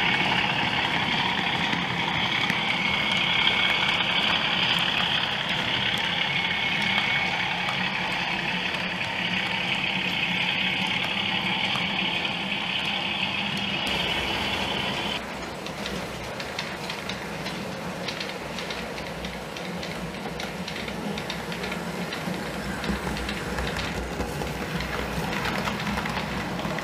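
Sound-fitted OO gauge model diesel locomotive's engine sound running steadily, with a low hum and a high whine. About fourteen seconds in the whine stops and the sound turns quieter with many light clicks.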